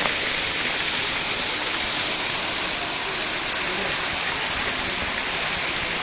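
Small waterfall pouring in thin streams over a rock ledge and splashing onto the rock below: a steady, even hiss of falling water.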